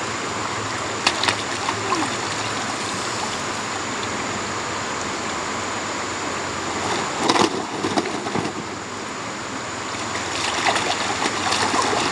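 Steady rush of running water, with a few brief splashes about a second in, around seven seconds in, and near the end.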